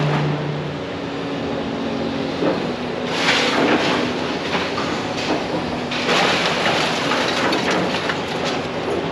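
Demolition excavator working a pile of scrap rebar and steel: the diesel engine running under a continuous clanking and rattling of metal. The clatter grows louder about a third of the way in and again past the middle.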